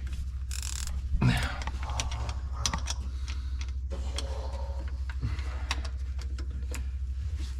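Scattered clicks, clinks and knocks of metal parts and hand tools being handled during a tractor transmission teardown, over a steady low hum.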